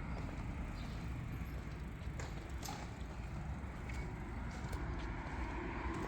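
Outdoor town street ambience: a steady low rumble with a couple of sharp clicks a little over two seconds in.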